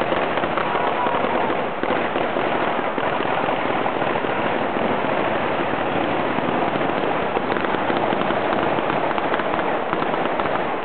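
Fireworks and firecrackers on a ceremonial cart going off in a dense, continuous crackle.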